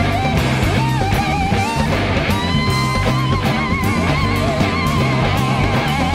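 Electric slide guitar playing a solo over a live rock band: long gliding, wavering lead notes with bass guitar and drums beneath.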